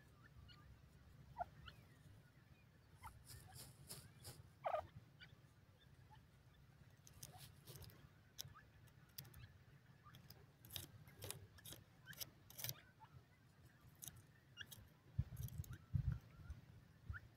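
Faint soft calls of hen pheasants: a short clucking note about five seconds in and a few quieter notes, over a low steady rumble. Scattered sharp clicks come in small clusters, and a few low thumps sound near the end.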